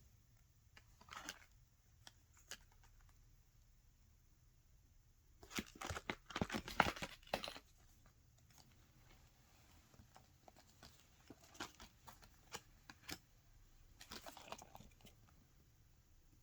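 Paper rustling and crinkling as a hardbound portfolio's paper pieces are handled, in separate bursts: a short one about a second in, a louder, longer one around the middle, then scattered light clicks and a last short rustle near the end.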